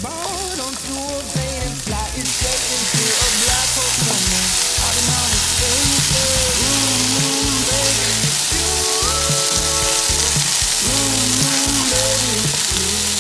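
Cauliflower gnocchi with zucchini and cherry tomatoes sizzling in a frying pan as they are stirred. The sizzle jumps louder about two seconds in and then holds steady.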